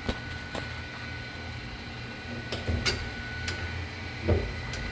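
A handful of sharp clicks and taps at irregular moments, with a short louder knock a little past four seconds in, over a steady low hum; a faint high steady tone stops about three-quarters of the way through.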